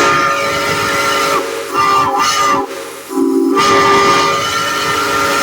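Multi-chime steam whistle sounding a chord of several steady notes over a hiss of steam: a long blast, a short one about two seconds in, then another long blast from about three seconds in.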